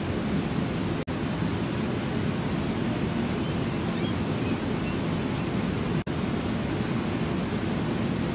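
Steady roar of Brooks Falls, river water pouring over the falls and churning below. The sound cuts out for an instant twice, and a few faint high chirps come through about three to four seconds in.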